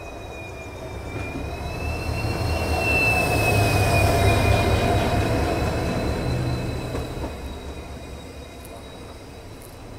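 EMD diesel locomotive hauling a passing express train past on the next track. Its engine rumble and a high steady whine swell to a peak a few seconds in as it goes by, then fade as the coaches roll past.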